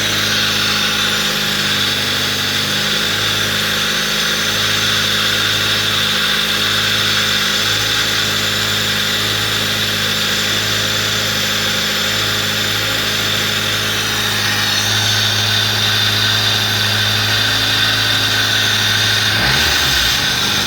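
Fiat Palio's four-cylinder Fiasa engine running steadily at a raised idle with the accessory belt off, so the alternator is not driven. It runs with a normal engine sound, free of the noise from the alternator's worn bearing.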